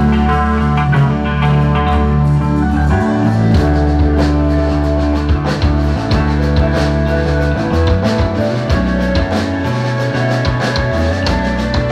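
A rock band playing through a stage PA at a sound check, with held bass notes and guitar lines. Drum hits grow busier from about halfway through.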